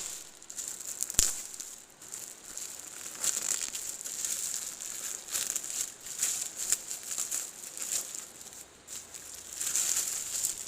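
Plastic packaging crinkling and rustling in irregular bursts as it is handled and opened, with a sharp click about a second in.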